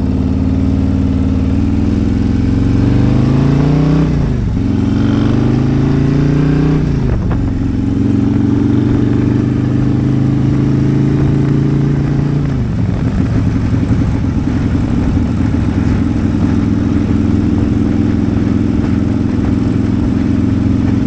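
Tuned Harley-Davidson CVO Road Glide V-twin with a custom stainless exhaust, running just after a cold start with a choppy, lumpy beat. Its revs climb slowly and drop back twice in the first seven seconds, hold at a fast idle, then settle to a lower idle about thirteen seconds in.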